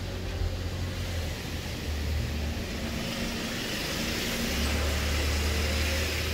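Car's front wheel turned by hand on a lift, with a rushing, scraping sound as it rotates, louder from about halfway through. It is typical of the brake lining lightly rubbing as the wheel turns. A low steady hum runs underneath.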